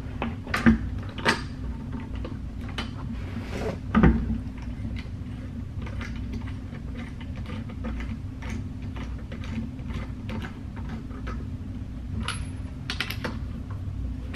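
New lug bolts being turned in by hand on a car wheel hub: light metallic clicks and ticks as they thread in. There are a few louder knocks near the start and about four seconds in, all over a steady low hum.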